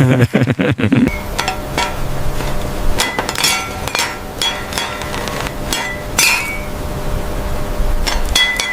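Hard tool strikes and clinks on glass pieces: about eight sharp, irregular knocks, a few with a short ringing tone, over a steady hiss.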